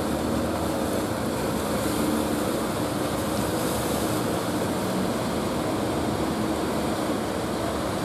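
Fishing boat's engine running steadily as the boat pushes through breaking waves, over a constant wash of surf and wind.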